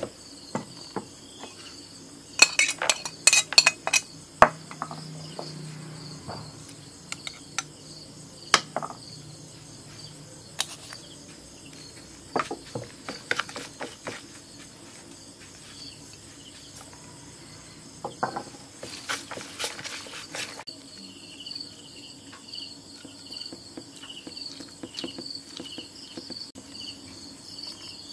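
Metal spoon clinking and scraping against a plastic tub in scattered bursts while minced pork is mixed with seasonings. Crickets chirp steadily in the background, most plainly in the last third.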